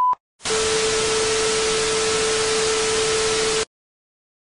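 The end of a censor bleep that covers speech, then about three seconds of loud white-noise static with a steady hum inside it, which cuts off suddenly into silence.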